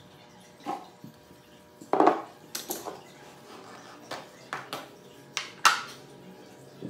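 Irregular metallic clinks and knocks as hands and tools work on the battery fittings of a Harley-Davidson Street 750 motorcycle during a battery change. There are about ten sharp clinks, the loudest about two seconds in and again near the end.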